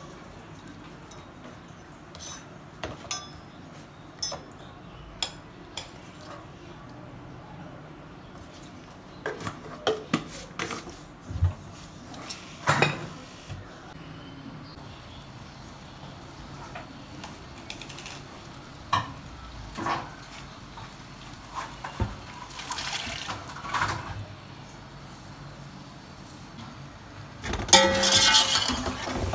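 Scattered clinks and knocks of kitchen utensils. Near the end comes a louder, continuous stretch of a metal spatula stirring and scraping in a large metal pot of pulao.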